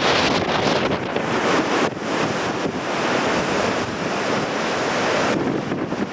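Sea surf breaking on a rocky shore in strong wind, with wind buffeting the microphone: a continuous loud rush that eases slightly near the end.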